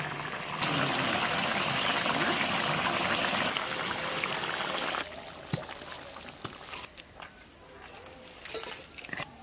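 Egg curry bubbling and sizzling in a metal kadai over a wood fire: a steady hiss that stops abruptly about five seconds in, leaving a few faint clicks.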